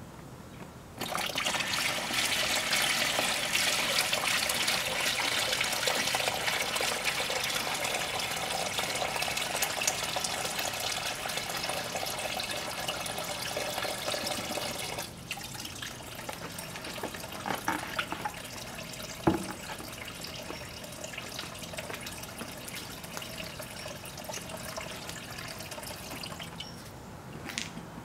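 Water poured from a bucket splashing into a plastic tub for about fourteen seconds, then stopping abruptly. A float-switched submersible pump then runs, with a quieter steady sound of water flowing, until it stops near the end.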